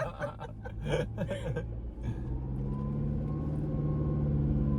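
The Toyota Fortuner's engine heard from inside the cabin on a rough 4x4 track: a few knocks and jolts in the first second and a half, then a steady engine note that slowly rises and grows louder as the vehicle pulls ahead.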